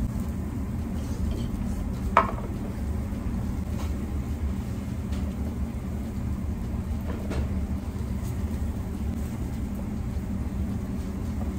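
Steady low background rumble, with one sharp clink of tableware about two seconds in and a few fainter taps of dishes and chopsticks later.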